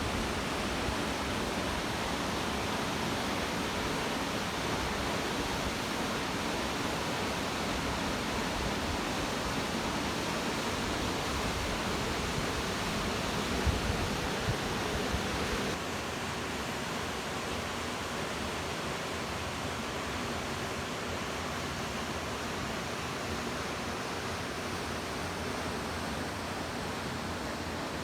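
Steady rush of falling water from a mountain waterfall, an even hiss spread across all pitches. Low buffeting runs under it for about the first half, then the sound changes abruptly to a slightly quieter, smoother rush.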